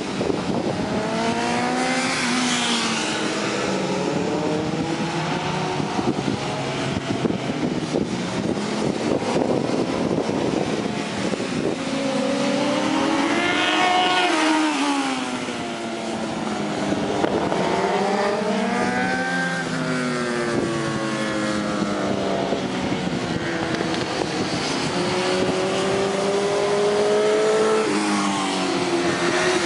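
Sport motorcycle engines racing on a circuit, their pitch rising and falling as the riders accelerate, shift and brake through the corners. About halfway through one bike passes close, its engine note climbing and then dropping away as it goes by.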